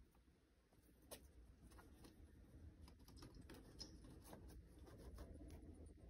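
Near silence with faint, scattered ticks and scratches, about one a second, as a pet rat moves about its cage on soil bedding.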